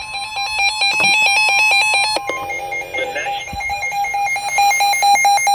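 Electronic alert tones from a weather alert radio as a new severe thunderstorm warning comes in: a rapid warbling beep pattern for about two seconds over a steady tone, then a steadier pulsing alarm tone.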